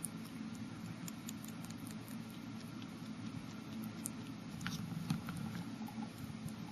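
Crested guinea pig eating liquid food from a spoon in a bowl: many small quick wet clicks and smacks of its mouth, with a sharper click about four and a half seconds in.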